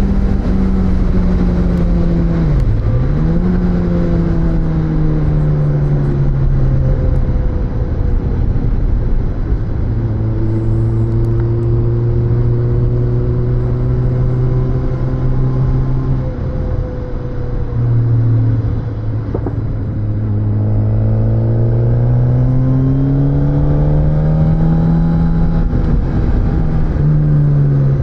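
Suzuki GSX-S1000's inline-four engine heard onboard while riding, over steady wind rush. The engine note dips sharply about three seconds in, falls away, then holds steady. After a break in the middle it climbs steadily under acceleration, with a quick drop shortly before the end, as at a gear change.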